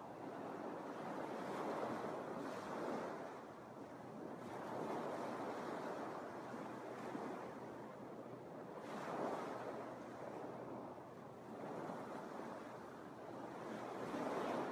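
Small Lake Michigan waves washing onto a sandy beach: a steady hiss that swells each time a wave breaks on the shore, about every three to four seconds.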